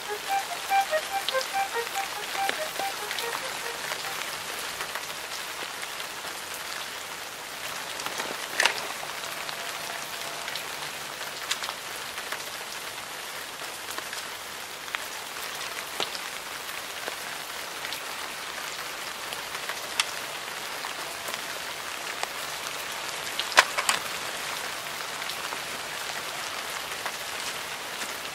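Steady rain falling, with a few sharp, louder taps of drops striking close by. A short melody fades out over the first few seconds.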